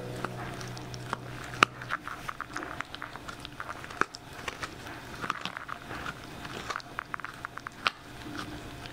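A small dog chewing and gnawing, with quick irregular clicks of its teeth.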